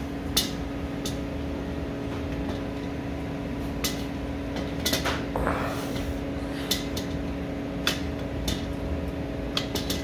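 Irregular metal clicks and clunks as a two-stroke bicycle kit engine with its carburetor is worked into a tight small bicycle frame, about half a dozen knocks spread through, over a steady low hum.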